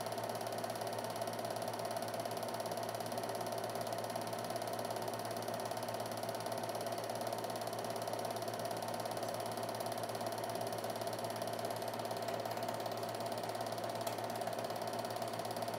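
Film projector running steadily: the rapid mechanical clatter of its film-advance mechanism over a steady hum.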